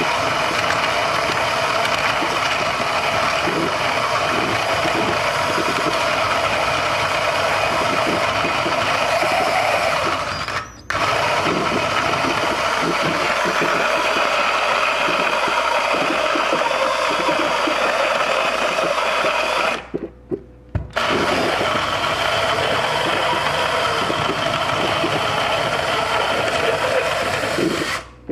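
Power drill spinning a Hario hand coffee grinder, its burrs grinding coffee beans: a steady motor whine over an irregular grinding rattle. It stops briefly twice, about ten seconds in and again about twenty seconds in, then runs on.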